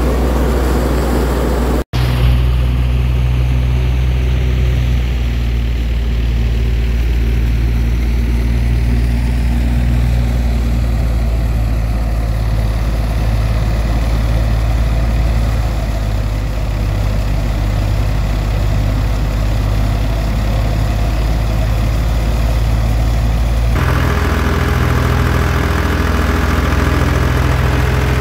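Wheat threshing machine running steadily with a low engine drone. There is a brief dropout about two seconds in, and the tone shifts abruptly near the end.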